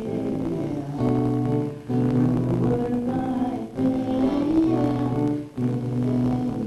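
Woman singing to her own strummed acoustic guitar, the chords held with short breaks about every two seconds.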